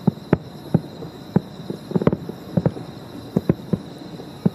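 Fireworks going off in a rapid, irregular string of sharp bangs, several a second. A steady high chirring of insects runs underneath.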